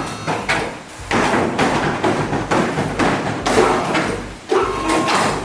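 Repeated banging and scraping of car-body sheet metal, in a string of loud bursts about half a second to a second long, as the body shell is worked free of its chassis.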